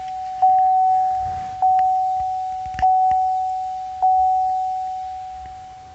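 Chevrolet Colorado's dashboard warning chime at key-on: one clear single-pitch ding struck four times about every 1.2 seconds, each ring fading slowly, dying away near the end.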